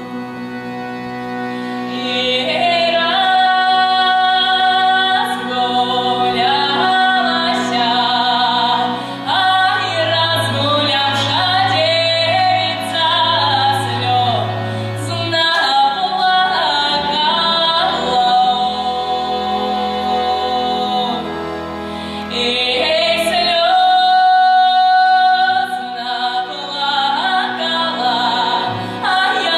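A young woman singing a Russian folk song solo in a trained voice with vibrato, accompanied by accordion and double bass holding low notes and chords. The voice grows louder about two seconds in.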